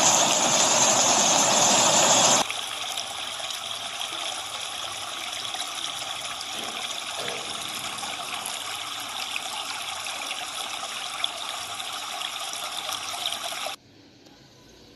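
Recorded rain mixed with a waterfall: a steady rush of water. A louder layer cuts off abruptly about two seconds in, leaving a softer, even water sound, which drops suddenly to a faint hiss near the end.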